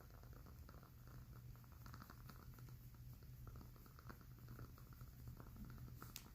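Faint crackling of a burning candle: scattered soft ticks and pops, with one sharper click about six seconds in.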